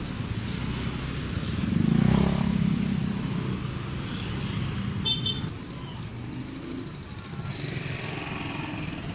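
Street traffic: small motor scooters running past close by, the loudest passing about two seconds in, with a short high beep about five seconds in.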